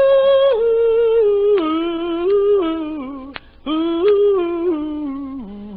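A wordless hummed or 'ooh' vocal in two sustained phrases, each stepping down in pitch, with a short break between them.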